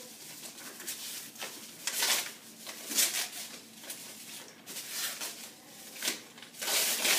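Plastic packaging bag rustling and crinkling as it is handled and pulled open, in irregular rustles that are loudest about two, three and seven seconds in.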